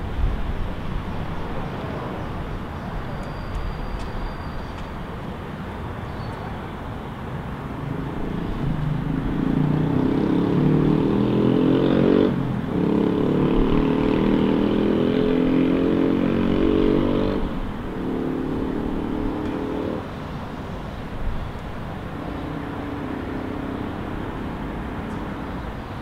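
Steady low city traffic hum. About eight seconds in, a vehicle's engine rises clearly over it, with a brief break about twelve seconds in as it shifts gear. It drops away after about seventeen seconds, leaving fainter traffic.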